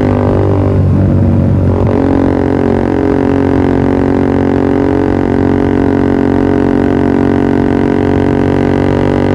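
Yamaha R15 V3's single-cylinder engine running through a Pro Liner TR1 aftermarket exhaust: a steady, loud exhaust drone, briefly unsettled about a second in before settling again.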